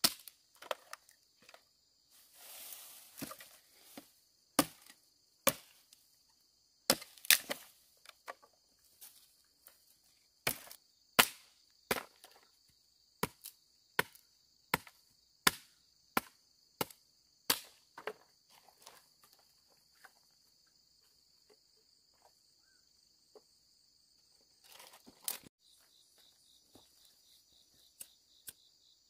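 Repeated sharp chopping blows, about one and a half a second, that thin out to a few scattered strikes after about eighteen seconds. A steady high insect drone runs behind them.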